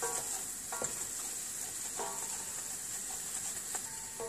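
Flour and butter roux sizzling in a pot as it is stirred and toasted, with a few faint scrapes of the spoon against the pot.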